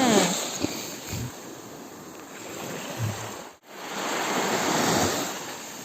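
Sea water washing and splashing with wind noise, swelling again about five seconds in. A short falling pitched glide sounds right at the start, and the sound cuts out for a moment about halfway through.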